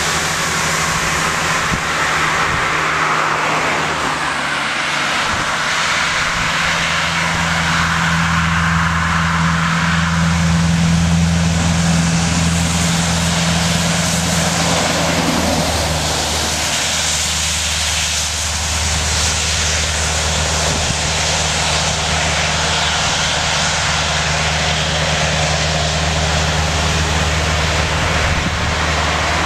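Scania R500 truck's V8 diesel engine running with a steady deep drone; its tone shifts about halfway through.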